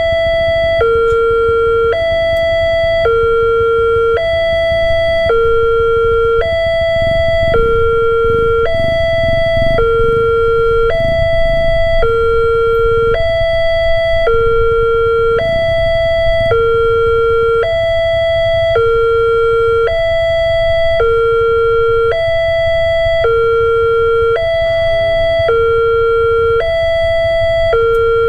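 Railway level crossing's electronic warning alarm sounding a two-tone signal: a lower and a higher tone alternate about once a second, warning that a train is approaching and the crossing is closed.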